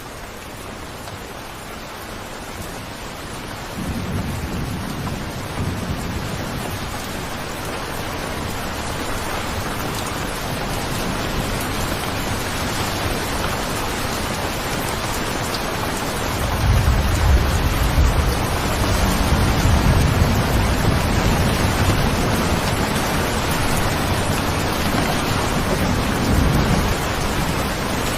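Steady rain hiss that slowly grows louder, with low rolling thunder starting about four seconds in and a heavier, longer rumble from about sixteen seconds on.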